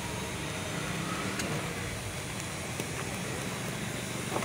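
Steady street traffic noise, an even hum with a few faint light ticks.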